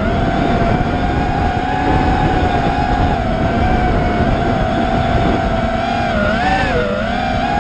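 Onboard sound of a 5-inch FPV racing quadcopter in fast flight: its Emax 2306 2750kv brushless motors and props give a steady whine that wobbles and dips in pitch with throttle changes about six to seven seconds in, over rushing wind on the camera.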